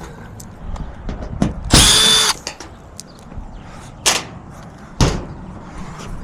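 Cordless drill driving out the sheet-metal screws on an HVAC unit's access panel: a short whirring run about two seconds in, then a couple of sharp metallic knocks.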